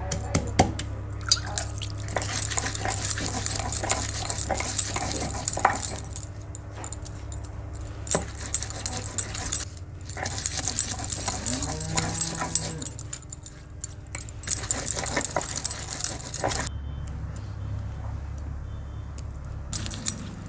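Hand grinding on a sil-batta: a stone muller crushing and rubbing garlic and green chillies on a grooved stone slab, with irregular knocks of stone on stone and spells of gritty scraping.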